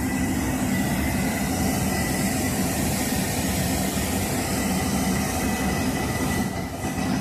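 A steady engine drone running close by, a constant low hum with a thin high whine over it, easing off slightly near the end.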